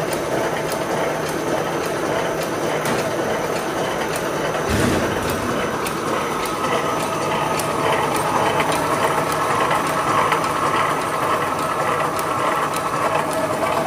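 Electric wire mesh welding machine running: a steady mechanical hum with repeated ticks from its moving parts, and a single low thump about five seconds in.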